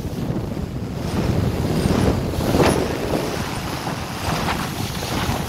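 Motorboat running at speed over open water: wind buffets the microphone over the rush of the hull's wake and spray.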